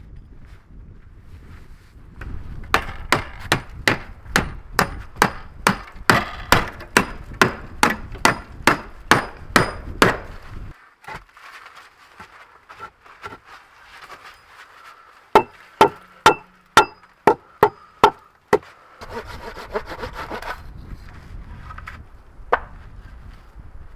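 Hammer blows on wood, a quick steady run of about three strikes a second with a slight ring on each. After a pause comes a second, shorter run of blows, then a brief scrape and a single last knock.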